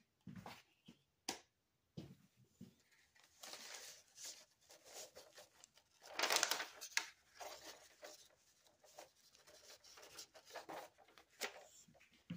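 Hands working at a newspaper-covered table, giving faint, irregular paper rustling and a few light clicks and knocks. The loudest rustle comes about six seconds in.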